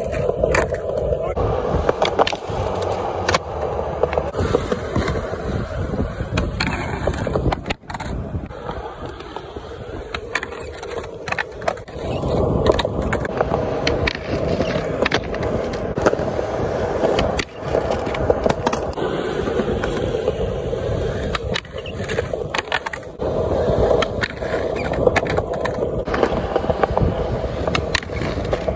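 Skateboard wheels rolling on rough concrete, with repeated sharp clacks as the tail pops, the deck scraping as it slides on a concrete ledge in noseslides, and the board and wheels slapping down on landings, over several attempts.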